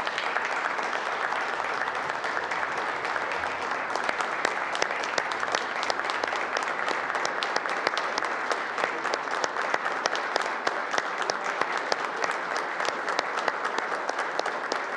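Applause from a chamber full of legislators: many people clapping their hands together in a steady, dense patter of claps.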